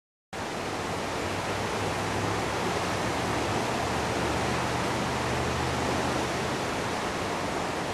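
Floodwater of the Guadalupe River rushing in a steady, loud wash of noise, starting abruptly just after the beginning.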